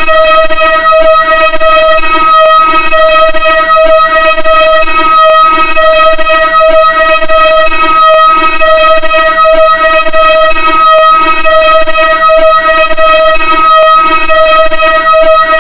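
Vocoder sound effect: a loud, buzzy synthesized tone held at one steady pitch, over a pulsing lower layer, with a faint click every few seconds.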